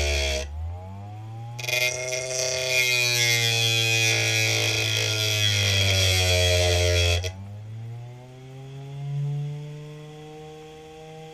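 Hard-drive spindle motor spinning a sandpaper disc with a rock pressed against it, making a loud rasping grind over the motor's whine. The grinding stops about half a second in, comes back about a second later, and stops again about seven seconds in. Each time the rock comes off, the motor's whine climbs back up in pitch as the load drops, leaving only the spinning motor's hum.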